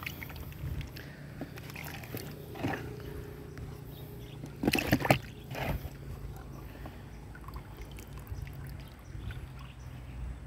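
Liquid manure solution sloshing in a plastic drum as it is stirred, with a few short, louder splashing sounds about five seconds in.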